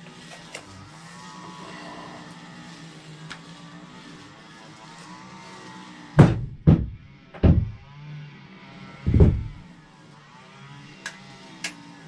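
Four dull, heavy knocks over about three seconds, then a couple of light clicks, over a low steady hum, from hands and tools working the battery free from a motorcycle's battery compartment.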